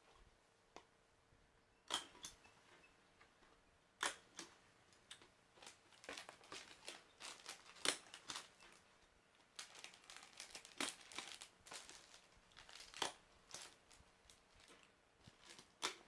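A hand stapler clicking shut several times, with crinkling plastic bags and cardboard being handled between the clicks.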